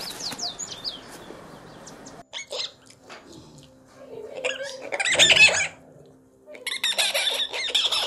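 Macaque calling: two loud, high-pitched squawking calls, one lasting about a second and a half from about four seconds in, the other near the end. Before them come faint chirps falling in pitch in the first second, then a few soft clicks.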